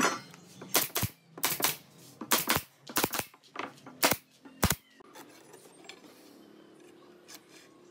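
Pneumatic nail gun firing about ten sharp shots, several in quick pairs, driving nails into the joints of a wooden frame; the shots stop about five seconds in.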